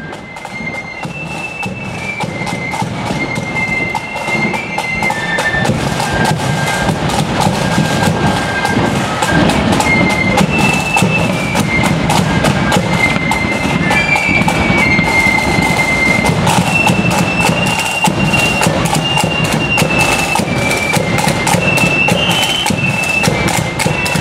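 Marching flute band playing a tune: flutes carry a high melody over steady snare and bass drum beats. The band grows louder over the first several seconds, then stays loud.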